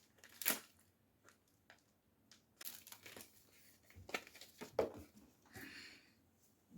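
Plastic packaging crinkling and rustling in scattered short rustles as a packet of wig caps is handled and torn open.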